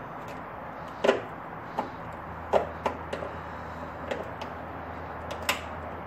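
Irregular sharp clicks and light knocks, about half a dozen, as the Jeep Wrangler's factory hood latch piece is worked loose by hand from the underside of the hood.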